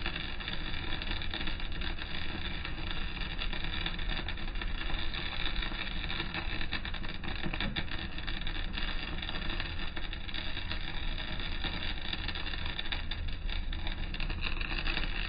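Welding arc crackling and hissing steadily during a vertical-down (3G downhill) weld pass on a steel plate seam, over a constant low rumble.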